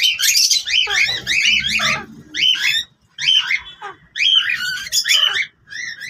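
Pet parrots calling: quick runs of short, arched chirps and squawks, several a second, broken by brief pauses.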